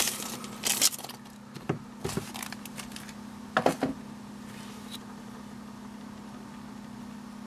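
Handling noises as eyeglasses are unpacked from a cloth pouch and plastic sleeve: three or four short rustles and clicks in the first few seconds, then only a steady low hum.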